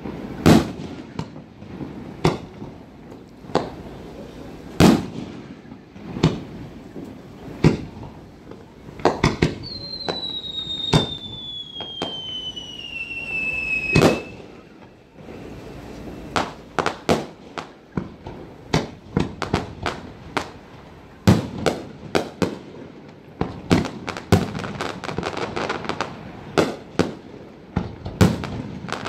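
Fireworks display: aerial shells bursting in sharp bangs at irregular intervals. About ten seconds in, a whistle falls in pitch for around four seconds and ends in the loudest bang. Near the end comes a quick cluster of bangs with crackling.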